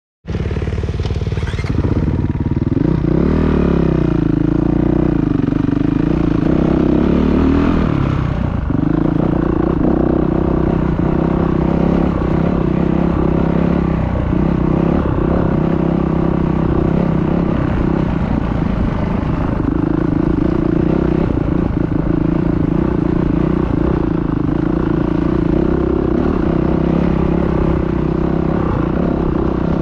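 Dirt bike engine running hard, its pitch rising and falling through the first eight seconds or so, then holding steadier.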